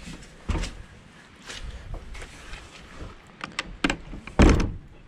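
Wooden barn door being handled: scattered knocks and rattles of the planks and latch, with one heavier thump of the door a little over four seconds in.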